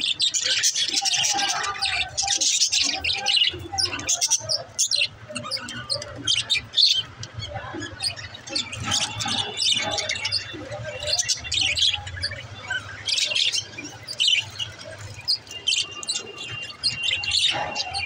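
A flock of budgerigars chattering and chirping without a break, with a few short held whistles mixed in.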